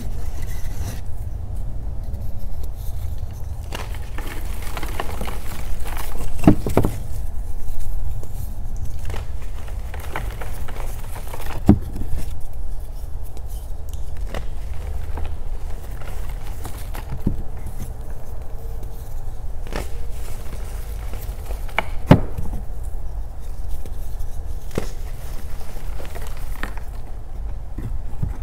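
Reformed gym chalk being crushed by hand: scattered crumbly crackles and scrapes with a few sharper snaps, over a steady low rumble.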